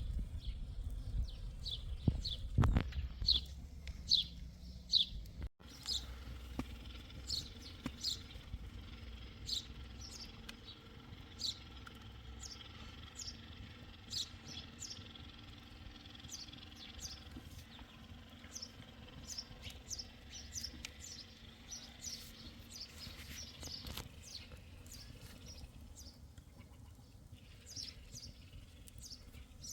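A small songbird chirping over and over, short high downward-sliding chirps about one or two a second, with a low rumble under them for the first five seconds.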